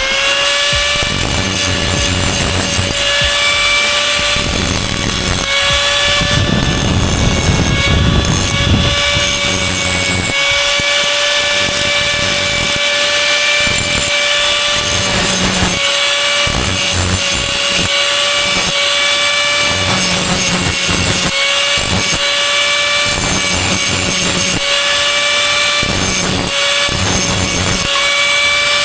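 Angle grinder spinning up to a high steady whine and running on continuously, the whine sagging briefly now and then as it bites into the metal, with a rough grinding hiss.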